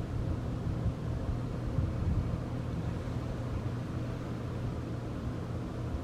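Steady low rumble of slow-moving street traffic.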